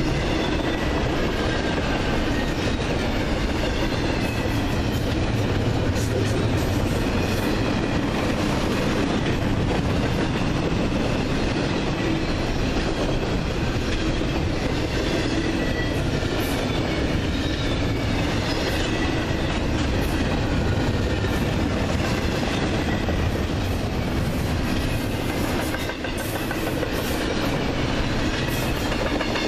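Double-stack intermodal freight train's well cars rolling past: a steady rumble of steel wheels on rail with clickety-clack over the rail joints, and faint high tones wavering above.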